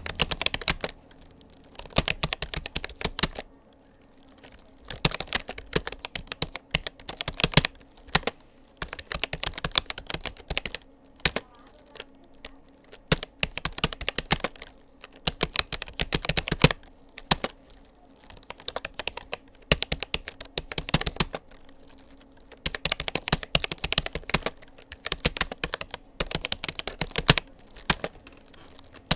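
Fast typing on a Rapoo computer keyboard: rapid runs of key clicks in bursts of a few seconds, broken by brief pauses of about a second.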